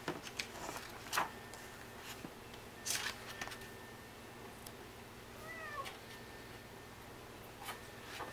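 Quiet room with a few soft clicks and taps as a toddler handles a picture board book, and one faint, short call with a bending pitch about five and a half seconds in.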